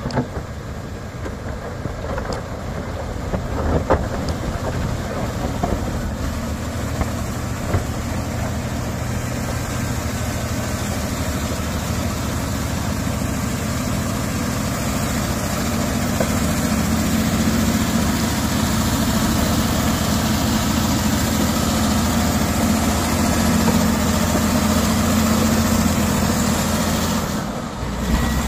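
Komatsu D155A crawler bulldozer's diesel engine running steadily, growing louder about halfway through.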